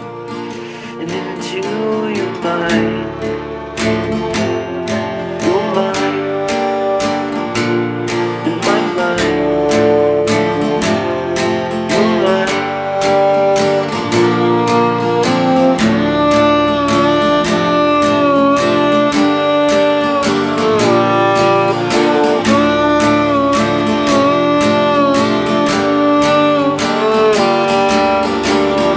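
Instrumental break of a country-style song: acoustic guitar strumming a steady beat, with a violin melody coming to the fore about halfway through.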